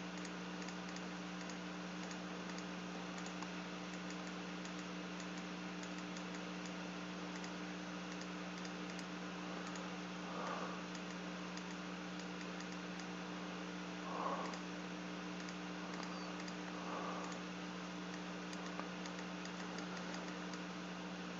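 Faint, scattered clicking of a computer keyboard and mouse in use, over a steady low electrical hum.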